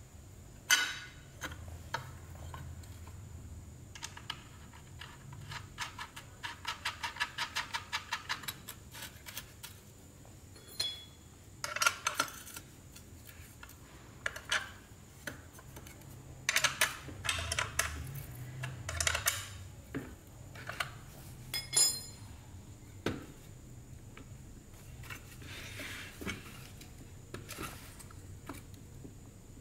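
Metal clinks and scrapes of a wrench and steel chainsaw parts being handled while the guide-bar nut is fitted and tightened, with a run of rapid even ticks about seven seconds in.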